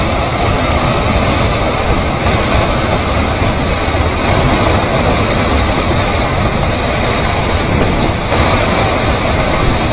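Debris flow of mud and stones moving down a rocky channel: a loud, steady rushing rumble of rock and mud grinding along.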